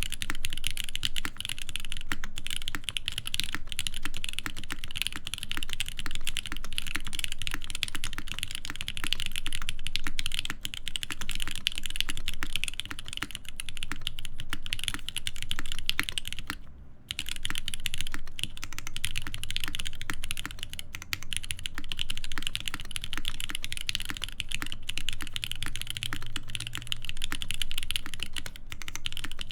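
Mechanical keyboard typed on at a steady pace: ORI CLS-2//65 with an aluminium full plate, Krytox 205g0-lubed switches (Cherry top housings, Giant v3 stems, Gateron Ink bottom housings) and GMK keycaps. The stream of keystrokes halts briefly about 17 seconds in, then resumes.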